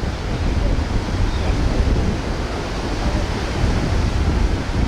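Surf breaking on a beach, with strong wind buffeting the microphone in a heavy low rumble.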